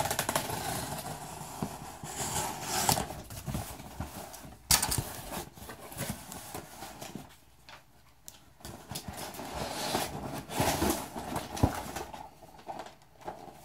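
Handling noise from a cardboard box being shifted about on a wooden floor: irregular knocks, scrapes and rustles. There is a lull about halfway through and a sharp knock near the end.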